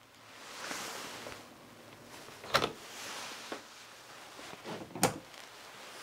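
Handling noises with two sharp clicks about two and a half seconds apart, as a mains plug is pulled out of a DIN-rail-mounted Schuko socket.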